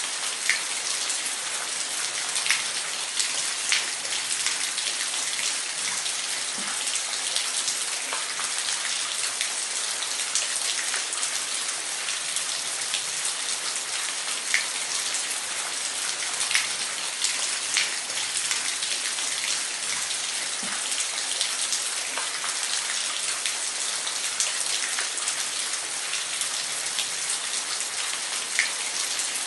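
Waterfall: a steady hiss of falling water, with scattered sharp splashes of single drops.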